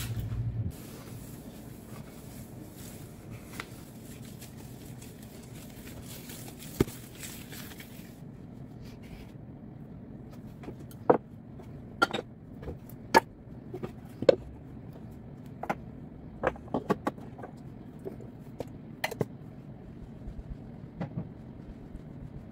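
Decorations and a canister being set back down on a granite kitchen countertop: a series of sharp knocks and clacks, a dozen or so, starting about halfway through. Before them, the faint sound of the counter being wiped.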